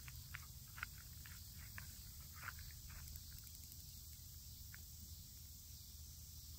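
Faint, scattered crunches of feet shifting and stepping on gravel, over a steady low rumble.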